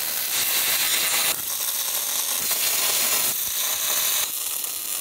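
MIG welding arc from a Fronius TransSteel 4000, crackling and sizzling steadily, its tone shifting a few times as the weld goes on.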